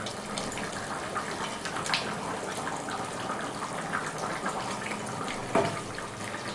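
Thin fish curry bubbling steadily in a pan on the stove, with a wooden spatula stirring it and knocking against the pan twice, about two seconds in and again near the end.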